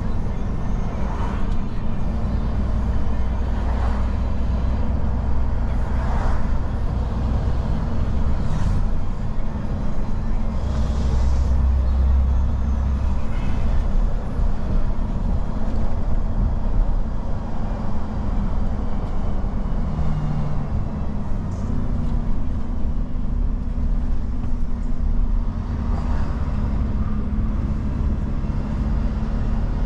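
Refuse truck's diesel engine heard from inside the cab while driving: a steady low drone with road noise, the engine note shifting in steps as the truck changes pace.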